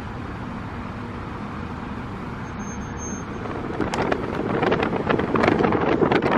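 Steady car or road-traffic noise. About four seconds in, it is joined by louder, crackling wind buffeting the microphone.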